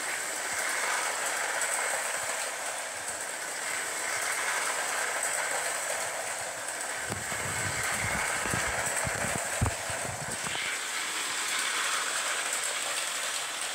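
Lionel O gauge model freight train running steadily around three-rail track, its wheels and electric motor making a continuous mechanical running noise. A few low knocks come a little past halfway.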